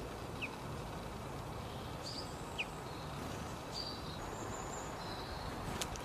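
Small garden songbirds calling: scattered short, high chirps and two quick downward-sweeping notes over a steady low background hiss, with one sharp click near the end.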